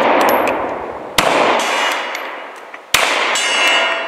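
Glock 43 single-stack 9mm pistol firing twice, about a second in and about three seconds in. Each shot is followed by the ringing of a steel gong target struck by the bullet, and the ring of a shot just before is still fading at the start.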